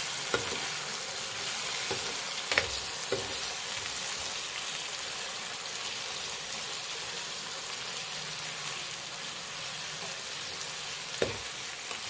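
Chicken and mushroom pieces sizzling in sauce in a nonstick frying pan while being stirred with a metal spoon. A steady sizzle runs throughout, with a few sharp knocks of the spoon against the pan near the start, around three seconds in, and near the end.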